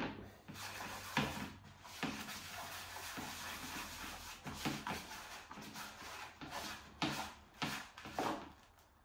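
A hand mixing fine, freshly dampened fishing groundbait in a plastic box: a gritty rubbing rustle made of irregular strokes, with a few sharper scrapes.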